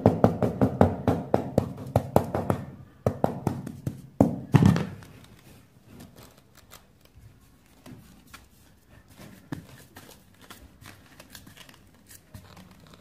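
Tiling mallet tapping an old terracotta hexagonal floor tile to bed it down into fresh mortar: quick, even taps, about four or five a second, then a few heavier blows about four seconds in. After that only faint scattered knocks.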